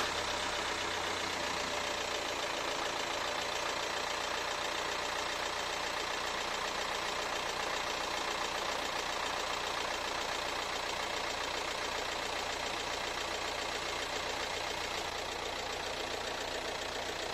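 Audi A4 B7's 1.9 TDI (BRB) four-cylinder turbodiesel idling steadily in the first seconds after a cold start.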